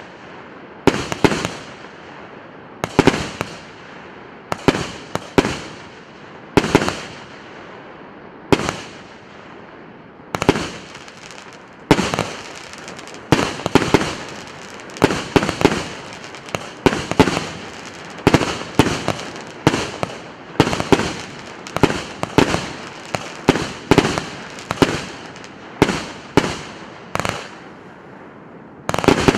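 PC861 'Fabergé' firework battery firing shot after shot. Each shot is a sharp bang with a short decaying tail. The bangs come about every two seconds at first and quicken to about one a second from around twelve seconds in.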